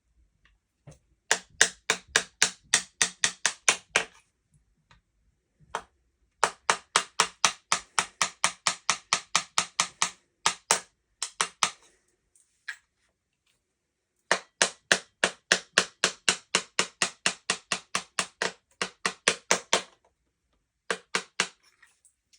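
Rapid, even tapping on a Panzer EGX 500 12-gauge shotgun during takedown, about four to five sharp knocks a second. It comes in three runs of a few seconds each, with a few single knocks between them.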